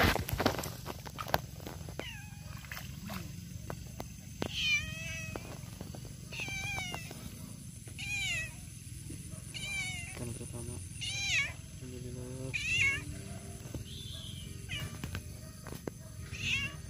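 A cat meowing over and over, about nine drawn-out, arching meows spaced a second or two apart. A brief sharp knock comes right at the start.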